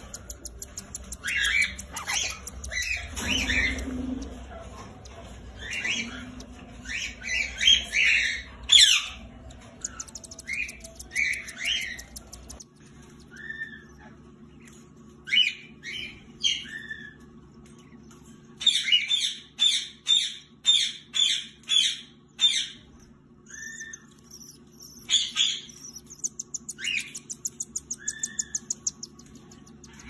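Cockatiel adults and nestling chicks calling: short chirps and squawks come throughout, with a quick run of evenly repeated calls past the middle and a rapid buzzing chatter near the end.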